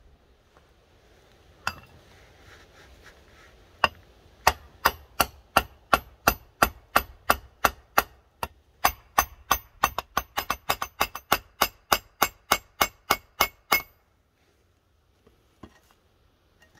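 Hammer tapping the brass pins that rivet a metal piece onto a cleaver blade's tang, on a wooden stump. A long run of sharp, ringing metal-on-metal taps, about three a second, coming closer together near the middle, then stopping.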